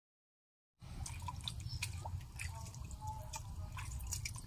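Splashing and dripping in shallow muddy water as someone wades through it, over a steady low rumble; the sound comes in suddenly a little under a second in.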